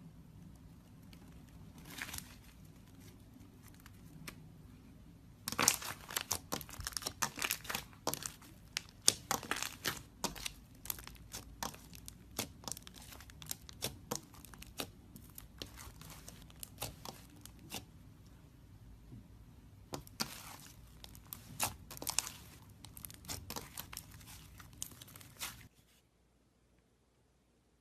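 Slime being squeezed and stretched by hand, making a dense run of sharp clicks and crackles, with a few scattered clicks at first. It stops abruptly near the end.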